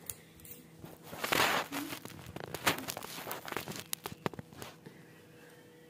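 Handling noise as a phone is moved and propped up: a rustling swish about a second in, then a run of light clicks and knocks.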